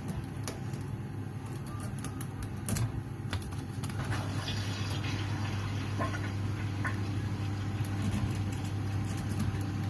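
Lock picks clicking and scraping in the keyway of a small pin-tumbler padlock, in irregular light ticks, over a steady low hum.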